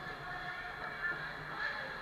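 Steady background din of an indoor ice rink during a hockey game: a constant hiss and hum with small brief bumps, likely skates and sticks on the ice.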